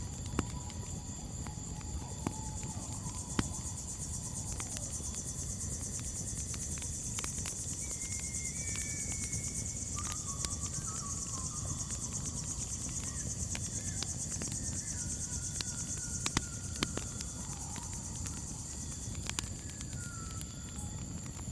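Crickets trilling steadily, with scattered sharp pops and crackles from a campfire and a few short whistled bird calls over a low steady rumble.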